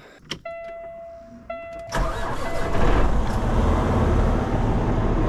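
Peterbilt 579 semi truck's Cummins diesel engine being started: a click, then a steady electronic beep from the truck sounding twice with a short break. About two seconds in, the engine catches suddenly and settles into a loud, steady idle.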